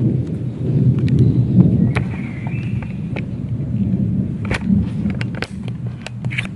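A continuous low rumble like distant thunder, louder in the first half and easing off later, with scattered sharp clicks over it: the strange thunder-like noise, of unexplained origin.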